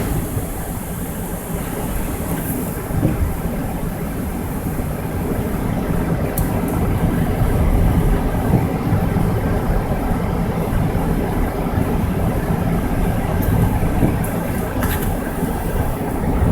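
Car driving on snowy roads, heard from the dashboard camera: a steady rumble of engine and tyre noise, with a couple of faint ticks.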